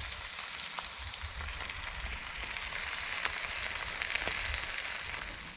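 Cheddar smokies and Wagyu beef burgers sizzling as they fry: a steady hiss with scattered sharp pops that swells through the middle and eases off near the end.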